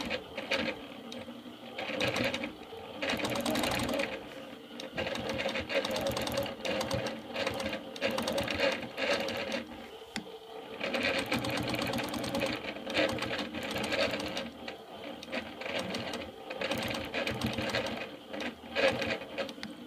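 Longarm quilting machine stitching, its needle running in a fast, steady rhythm, easing off briefly several times as it is guided along a ruler.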